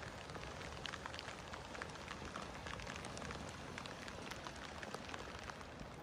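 Rain falling: a steady hiss with many scattered drops ticking close by.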